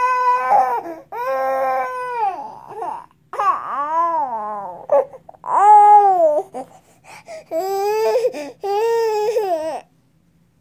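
A baby fussing with about six drawn-out, wailing cries, each about a second long, the pitch arching up and falling back. The cries stop shortly before the end.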